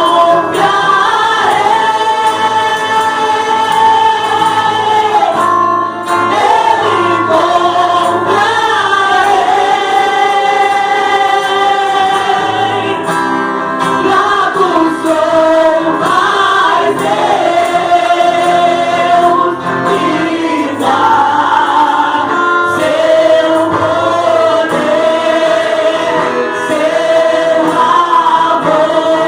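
A choir singing gospel worship music with accompaniment, long held sung notes.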